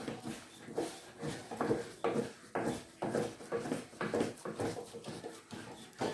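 A cooking spoon stirring and pressing stiff maize-meal ugali in a pot, with rhythmic scraping and slapping strokes about two or three a second.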